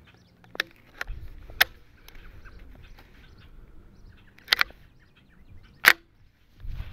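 A handful of sharp, short clicks from a Ruger 10/22 .22 rifle being handled at its action while it is readied to shoot, including a quick double click past the middle and the loudest click near the end.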